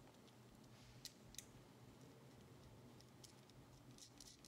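Near silence with a few faint clicks of a plastic battery box being fitted to the back of a small radio circuit board: two about a second in, a few more near the end.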